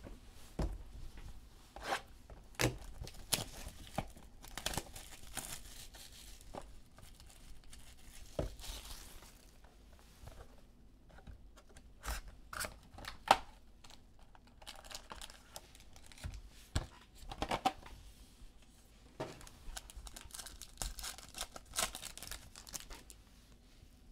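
Trading card packs being torn open, the wrappers crinkling, with sharp clicks and snaps scattered throughout as packs and cards are handled.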